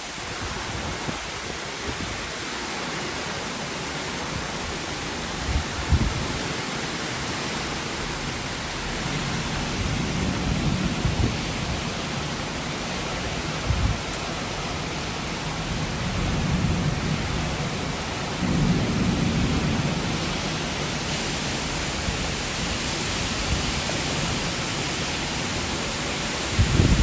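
Heavy rain falling steadily in a thunderstorm. Thunder rumbles low about ten seconds in and again several seconds later, with a few short low thumps in between.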